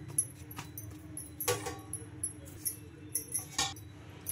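A few light metallic clinks, about three, over a faint steady hum, as hands shape kneaded spinach paratha dough into balls.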